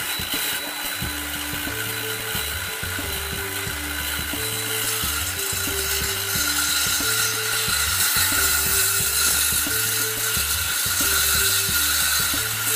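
Circular saw running at full speed and cutting through a wooden 2x4, a steady saw noise that grows a little louder past the middle of the cut.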